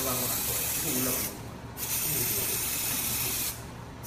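Aerosol can of clear coat hissing as it is sprayed in passes over a car bumper. The spray cuts off for about half a second a little over a second in, resumes, and cuts off again near the end.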